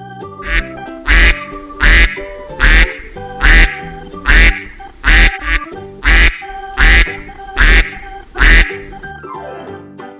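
A duck quacking about ten times in a steady, evenly spaced series, a bit under a second apart, loud over background keyboard music. The quacking stops shortly before the end.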